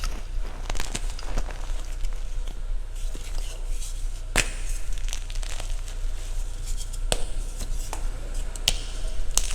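Chalk being crumbled and crushed by hand: irregular crisp crackles and crunches, with a few sharper snaps, over a steady low hum.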